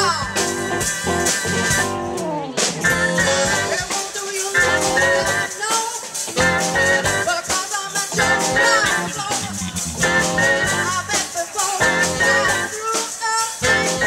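Live band playing a blues-style groove: a woman singing over electric guitars and a drum kit.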